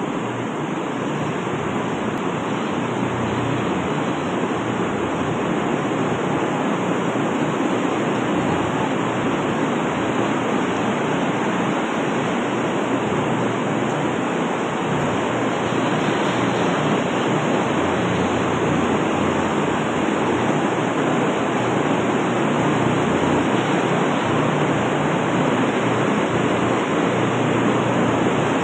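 Steady, even rushing noise of large barn ventilation fans running.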